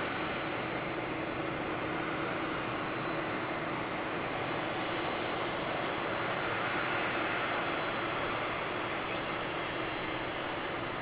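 Jet engine noise from a Japan Airlines Boeing 787-8 Dreamliner's GEnx-1B turbofans on takeoff: a steady, even rushing sound that eases slightly near the end.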